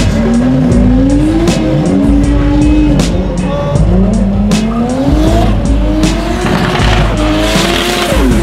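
Drift car engine revving, its pitch climbing and dropping several times as the throttle is worked, with tyre squeal. Background music with a steady beat plays under it.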